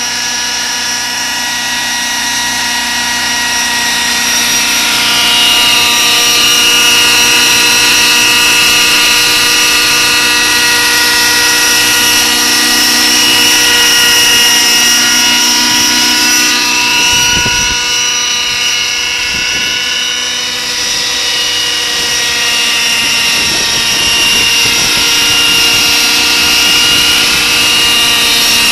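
Radio-controlled scale Schweizer 300 model helicopter hovering: a steady high-pitched motor whine with the rotor's hum, growing louder about four seconds in as it comes closer, its pitch wavering slightly as it manoeuvres.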